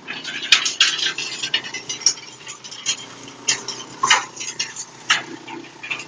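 Irregular metallic clattering and knocks, about ten sharp hits spread unevenly, over the faint steady hum of a wood chipper machine running.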